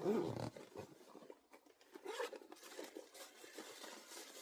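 Faint rustling and light clicks of camping gear being handled and rummaged through in a kit bag, with a louder rustle at the start.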